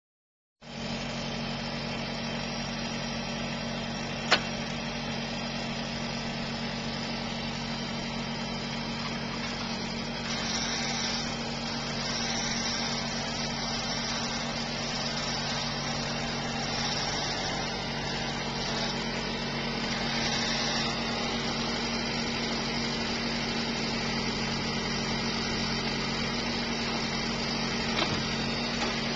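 Carrier vehicle's engine running steadily, driving the hydraulics of a TFC 3500 Versus forestry crane as it loads logs. A sharp knock comes about four seconds in, and a higher hiss grows a little louder from about ten seconds in.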